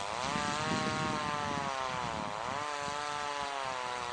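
A small engine running steadily, its pitch sagging about two seconds in and then rising again, with irregular low knocks and rustling underneath.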